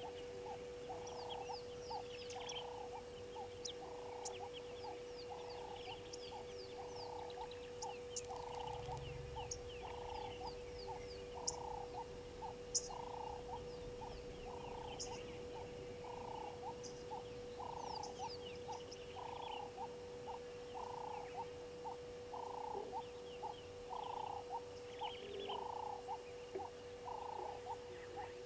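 A frog calling over and over from the water, about one call a second and steady in rhythm. Faint high chirps of small birds and a steady low hum sit beneath it.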